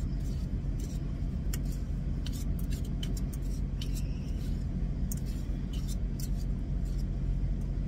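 A utensil stirring food in a small metal pot gives irregular light scrapes and clicks. Under it runs the steady low hum of an idling truck engine.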